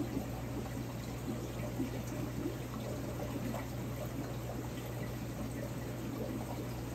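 Aquarium water circulating: a steady splashing trickle of returning water, with a constant low hum under it.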